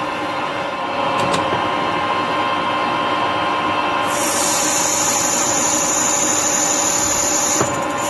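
Harrison 140 metal lathe running under a turning cut, a steady machine whine with the tool cutting into the spinning workpiece. A brighter high hiss joins about four seconds in and stops shortly before the end.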